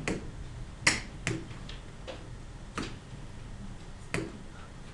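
About five sharp, separate taps and clicks at irregular intervals, from a stylus working the pen-annotation tools on a computer screen.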